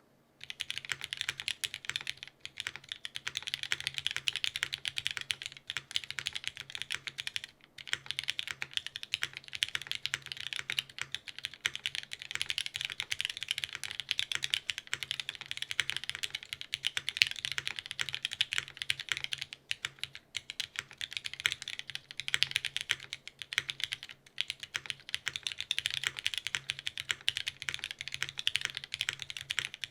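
Fast, continuous typing on a PJB Eros TKL custom mechanical keyboard with an O-ring-mounted aluminum plate, vintage West German Cherry MX Black linear switches (lubed and filmed) and GMK Beta keycaps. The keystrokes come in quick runs, broken by a few short pauses.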